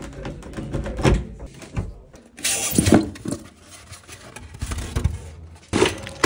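Handling noises: several knocks and clunks and a short burst of rustling near the middle, as foam packing and a plastic-wrapped parts bag are lifted out of a new washer's drum.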